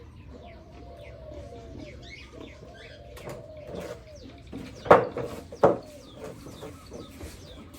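Pigs waiting for feed, calling over and over in short rising-and-falling grunts and squeals, with two loud cries about five seconds in.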